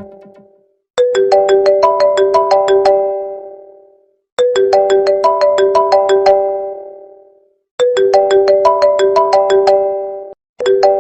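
Mobile phone ringtone: a short melody of quick pitched notes, repeated three times about every three and a half seconds, starting again near the end.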